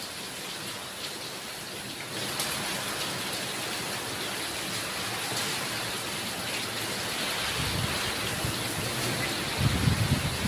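Steady rain falling, its hiss growing louder about two seconds in, with a low rumble near the end.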